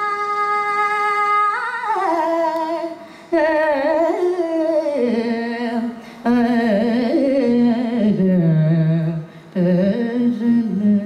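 A woman singing Carnatic classical vocal: a note held steady for about two seconds, then long wavering, ornamented phrases (gamakas) that wind downward, broken by three short breaths.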